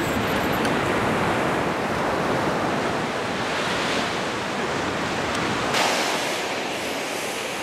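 Ocean surf washing onto a beach, with wind rumbling on the microphone; the low wind rumble thins out about six seconds in.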